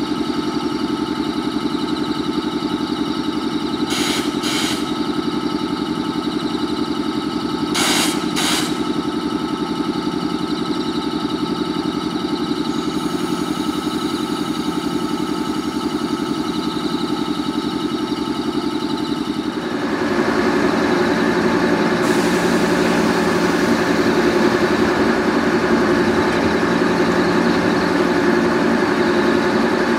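JR 415 series steel-bodied electric multiple unit standing powered up, its on-board equipment giving a steady hum with several held tones. Short double bursts of noise come about 4 and 8 seconds in. About 20 seconds in the sound turns suddenly louder and rougher, then holds steady.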